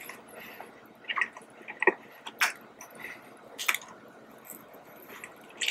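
Chewing and mouth sounds of a person eating a soft cream-topped donut, with several sharp lip smacks spread through it.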